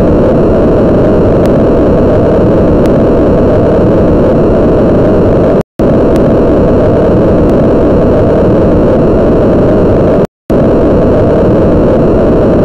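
Loud steady rushing noise, heavy in the low and middle range and thin above it, with no beat or pitch; it cuts out briefly about six seconds in and again about ten seconds in.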